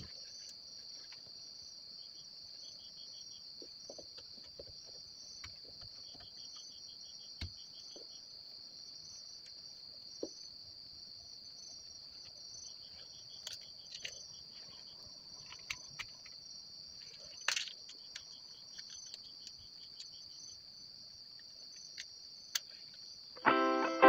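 Faint insect chorus: a steady high trilling with a few short runs of rapid chirps and scattered faint clicks. Guitar music starts just before the end.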